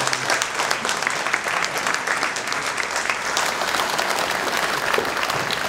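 Audience applauding: many people clapping at once, steady and dense.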